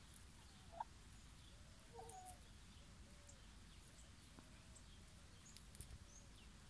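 Faint, low clucks of a hen resting in an ash bath: a few short soft calls spread through the quiet, with faint high chirps of wild birds in the background.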